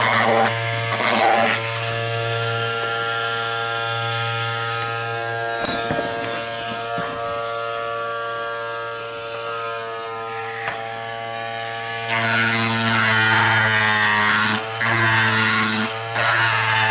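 Small handheld electric power tool with a buzzing motor, running steadily while bevelling the edge of a plastic motorcycle fairing piece. About twelve seconds in it gets louder and rougher, with a brief dip in pitch as it bears into the plastic.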